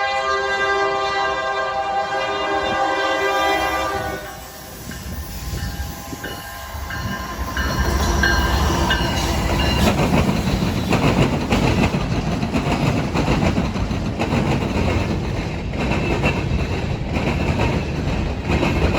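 A freight locomotive's air horn sounds a chord that cuts off about four seconds in. Then the train rolls past with a steady rumble and wheels clattering over rail joints, with a few brief high wheel squeals.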